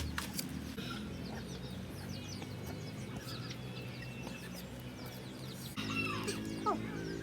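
Chickens clucking, with a louder call about six seconds in.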